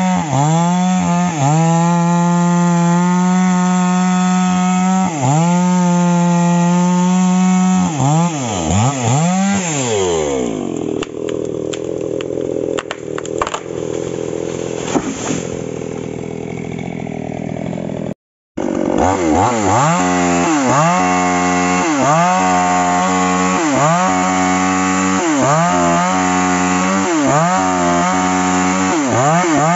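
Falcon chainsaw running at high revs, cutting into a rubber tree trunk, its engine note dipping and recovering as the chain bites. About ten seconds in the engine note falls away, and a stretch of cracking, snapping and rustling follows as the tree comes down. After a brief silent gap the saw is cutting again, revs dipping rhythmically under load.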